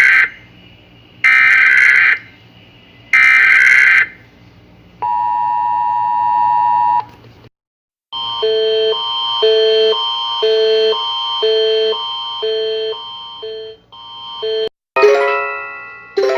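Emergency Alert System alert: three short screeching data bursts about two seconds apart, then a steady two-tone attention signal for about two seconds. After a brief gap comes a repeating electronic tune of pitched notes, with chime-like notes near the end.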